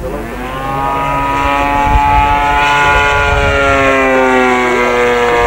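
Engine of a radio-controlled aerobatic model airplane making a fly-by: a steady propeller drone that swells louder over the first two seconds, then slowly drops in pitch as the plane passes.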